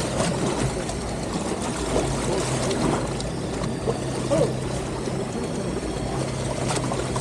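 Boat engine running with a steady low hum, with water sloshing and splashing around the hull.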